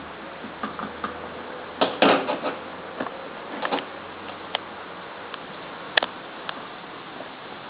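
Scattered light taps and clicks of a spoon and containers being handled as baking soda is added to a homemade volcano, over a steady hiss. A cluster of taps comes about two seconds in and a sharp click about six seconds in.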